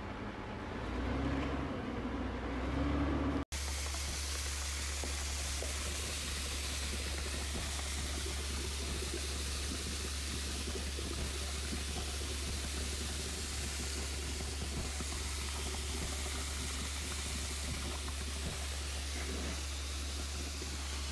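Concrete pump truck running steadily with a constant low hum while concrete flows out of its hose into a foundation wall form, heard as a steady hiss; it cuts out for an instant about three and a half seconds in.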